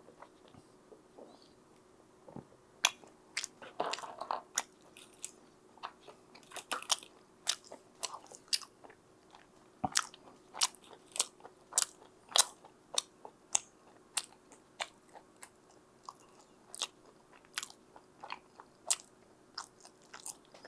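Close-up chewing of pizza, crisp crunches about twice a second that start after a few quieter seconds.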